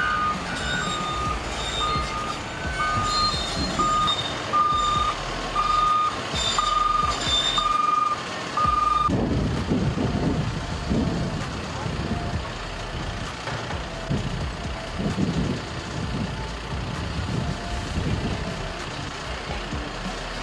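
Reversing alarm of heavy construction equipment beeping steadily about every three-quarters of a second, then stopping about nine seconds in, over the low rumble of working machinery.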